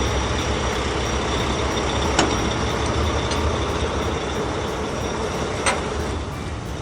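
Heavy truck engine running steadily, a low rumble with two short clicks, one about two seconds in and one near six seconds.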